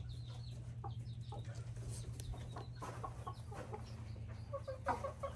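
Cochin bantam chickens clucking softly in short, scattered calls, with a louder cluster of clucks about five seconds in.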